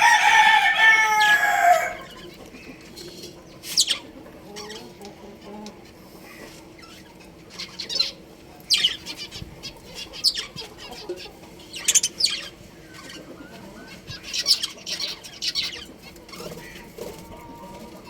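A rooster crows once at the start, a loud call of about two seconds falling slightly in pitch. Then budgerigars give short, sharp, high chirps every few seconds.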